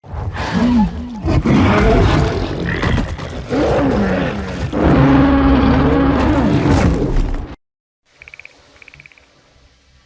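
Sound-designed call of the Parrot Frog, a fictional film creature: a loud, rough roaring croak whose pitch swoops up and down, lasting about seven and a half seconds before cutting off suddenly. After a short gap comes a much quieter passage with two brief high trills.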